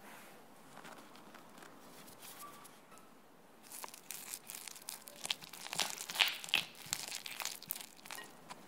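A silicone spatula stirs and scrapes a wet mixture of egg yolk and chopped mint against the sides of a glass bowl, starting about four seconds in. The sound is a dense run of short scraping, sticky crackling strokes, loudest a couple of seconds after it begins.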